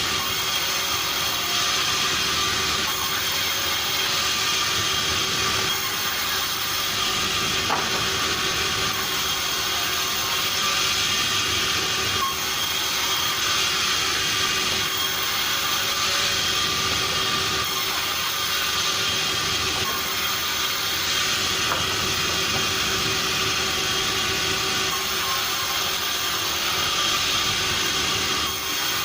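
Sawmill machinery running steadily: a constant mechanical hiss and hum with a few steady tones.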